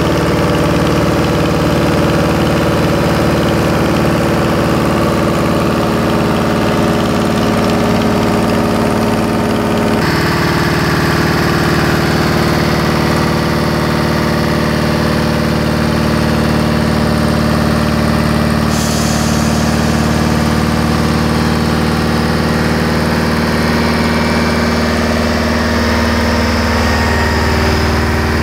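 Davey diesel-driven SCBA breathing-air compressor running steadily, its engine and compressor giving a loud, even mechanical drone. The tone changes abruptly about ten seconds in.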